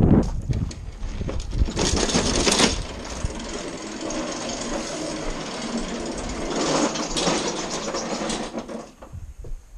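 Lawn-Boy push mower's four-stroke engine being cranked over, a rapid mechanical chatter with louder surges, dropping off near the end. The engine won't start.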